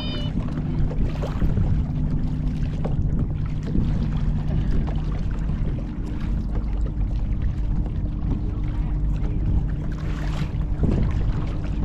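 Kayak paddling: a steady low rumble of wind on the microphone, with a few soft splashes of the paddle blades in the water.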